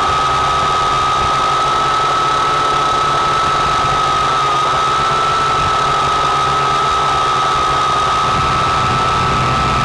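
Syma X8C quadcopter's motors and propellers running in flight, heard from on board as a loud, steady whine with a slight waver in pitch.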